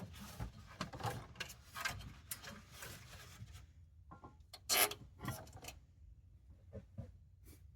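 Hand tools and metal engine parts being handled during a water pump job: scattered clicks, clinks and rubbing, with one louder clank about five seconds in.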